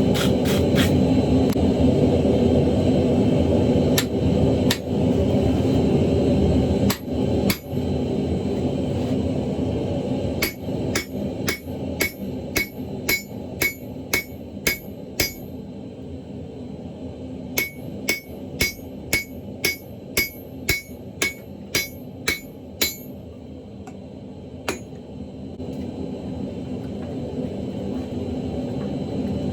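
Hammer blows ringing on an anvil while forging the end of a semi-truck axle shaft into a dog-head hammer: a few scattered strikes, then two steady runs of about two blows a second with a short pause between, and one last blow near the end. A steady low roar runs underneath, louder in the first third.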